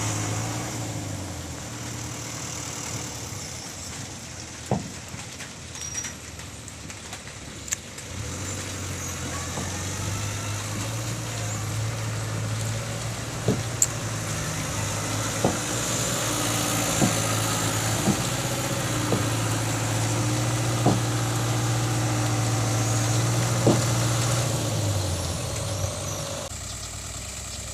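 Heavy machine's engine running with a steady note that drops early on, climbs back and holds, then falls away near the end. Sharp knocks sound now and then over it, about ten in all.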